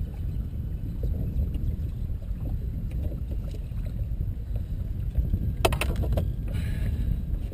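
Steady low rumble of wind and water around an open boat, with a quick run of clicks and knocks about six seconds in.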